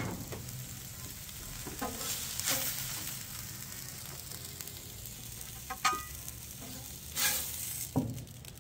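Walleye fillets sizzling steadily in butter on a hot Blackstone flat-top griddle, while a metal spatula scrapes across the griddle steel a few times, sliding under the fillets to lift them off.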